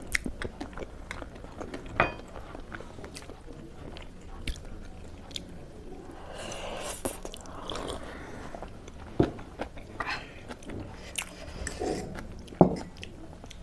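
Close-up eating sounds of spicy instant noodles: chewing and mouth noises with scattered short sharp clicks, and a longer noisier stretch of eating about halfway through.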